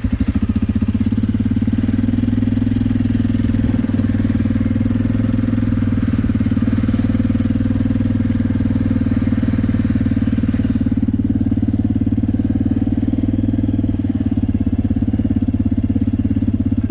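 Four-wheeler's engine running steadily while being driven, with a rapid, even firing pulse. A higher rushing, rattly layer over it falls away about eleven seconds in.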